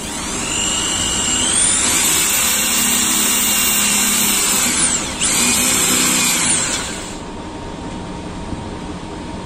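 Power drill run twice: each time the motor whine climbs in pitch as it spins up, holds steady, then falls away as the trigger is released. The first run lasts about four seconds and the second about a second and a half, over a steady background hum.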